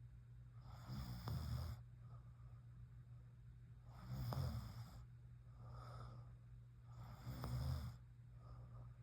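A woman snoring in her sleep: three snores about three seconds apart, each lasting about a second, with a softer breath between two of them.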